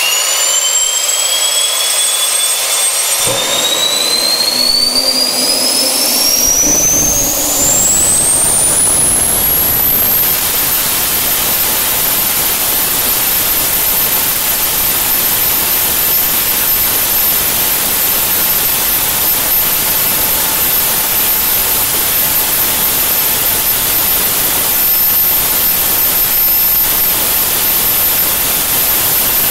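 Garrett GTP-30-67 gas turbine spooling up during its start, a whine climbing steadily in pitch while a loud rushing noise fills in about six seconds in. About ten seconds in the pitch levels off, and the turbine runs on at speed with a steady high-pitched whine over the rush.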